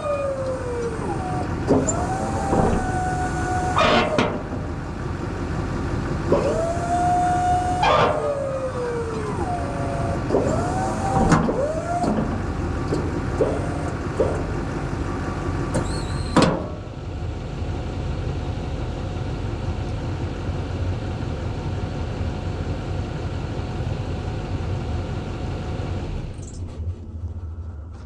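Blizzard 860SW snow plow's electric-hydraulic pump running in short bursts, each whine rising, holding and falling as the plow is swung left and right and raised and lowered, with sharp knocks as the plow moves. Under it a Duramax diesel pickup idles steadily, and the rumble drops away near the end.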